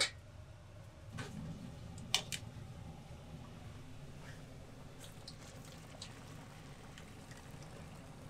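Pots of chicken boiling on a commercial gas range, a steady low bubbling, with a few sharp metal clinks about one and two seconds in.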